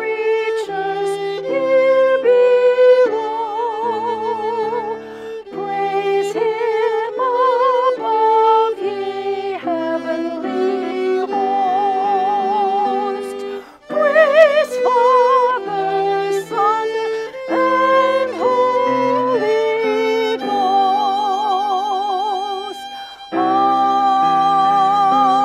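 Violin playing a melody of held notes with vibrato, accompanied by piano chords, with short breaths between phrases about halfway through and again near the end.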